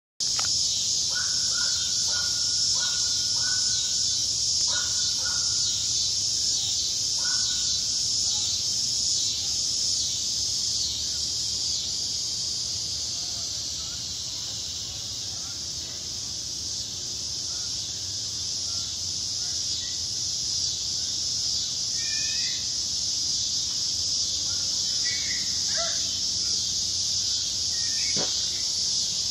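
Chorus of cicadas buzzing as one steady, high-pitched drone. A bird calls several times in the first eight seconds, and a few faint chirps come near the end.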